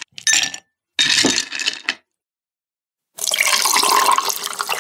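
Ice cubes dropping into a glass, clinking twice in the first two seconds, then after a short pause a drink pouring steadily into the glass, starting about three seconds in.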